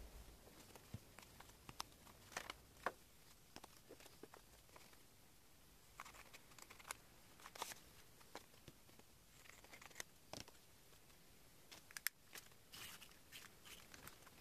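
Faint, scattered crinkles and clicks of a plastic-and-card sticker package being handled and cut with scissors.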